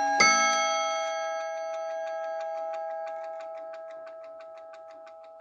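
The bim-bam striker of a Vedette Transistor ATO-MAT wall clock strikes its steel chime rods once just after the start, and the rods ring on and slowly fade. As the ringing dies, the rapid, even ticking of the clock's battery-driven movement comes through.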